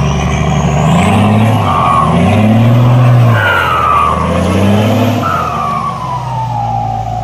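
Diesel dump truck with a loud aftermarket exhaust, revving hard three times as it pulls through the mud. The engine note climbs with each pull, and a whistling tone glides down after each one.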